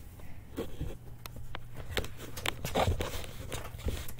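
Scattered light knocks and rustles of someone moving about and handling the camera, over a faint steady low hum.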